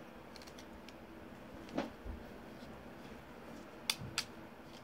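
Handling noise from a phone tripod being screwed together by hand: a soft knock just under two seconds in, then two sharp clicks close together near the end.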